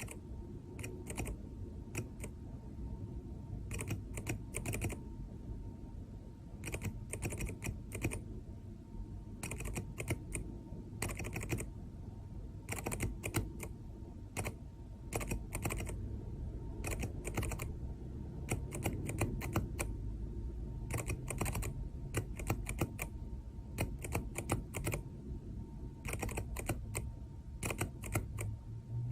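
Keyboard key switch clicking in quick, irregular clusters of short and longer taps as Morse code is keyed on a tiny '1%' keyboard, over a low steady hum.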